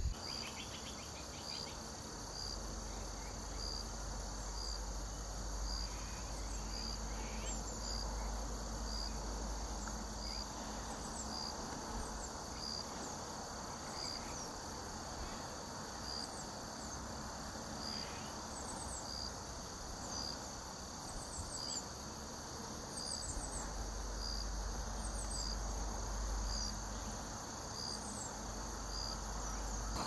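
Field chorus of crickets and other insects trilling steadily, with one high chirp repeating about once a second. A low rumble comes and goes underneath.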